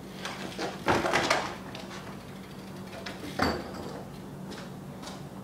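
A BMX bike crashing down onto asphalt after a bailed hop-whip attempt: a loud rattling clatter of the metal frame about a second in, then one shorter knock a couple of seconds later.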